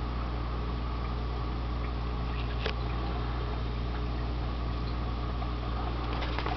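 Steady low hum and hiss of running aquarium equipment, with a single click about two and a half seconds in and a few light clicks near the end.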